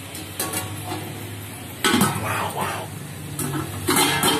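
Clattering and clanking of a steel plate being set on a metal cooking pot as a lid and handled with steel pot tongs. The loudest clank comes about two seconds in, with another just before the end.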